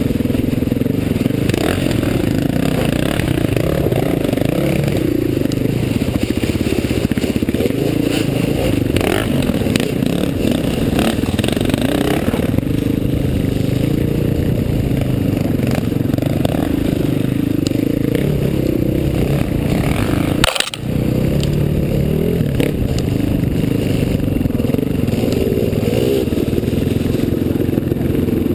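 Dirt bike engine heard from on board the rider's own bike, running and revving up and down as it rides the trail. A split-second gap breaks the sound about twenty seconds in.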